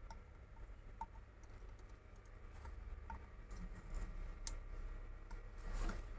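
Faint, scattered light clicks and taps of small tools working on an LED lamp's circuit board during soldering repair, with a sharper click past the middle and a short scraping sound near the end.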